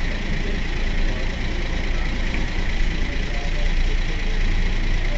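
Mercedes-Benz O 405 N city bus's rear-mounted engine idling steadily while the bus stands still, with a steady high whine over the low engine note.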